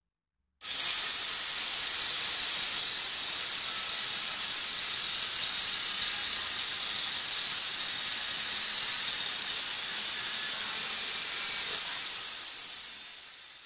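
Angle grinder fitted with a chainsaw bar and chain starts suddenly and runs at a steady high-pitched whir while cutting through a wooden slat, then is switched off and winds down near the end. The chain is dull and needs sharpening.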